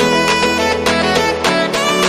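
Background music: instrumental music with sustained melodic notes over plucked strings and a steady beat.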